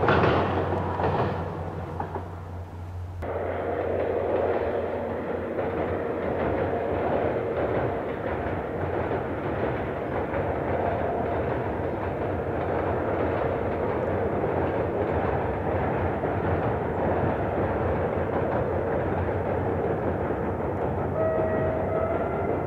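Drum-beat music fades out over the first few seconds. Then an ADtranz DE2000 diesel-electric locomotive hauling an InterCity train runs steadily across a steel truss viaduct, a continuous engine drone mixed with rolling wheel noise. A steady higher tone joins near the end.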